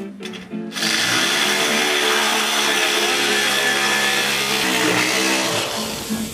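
Handheld power tool running hard on the car's sheet-steel body, starting suddenly under a second in and winding down near the end.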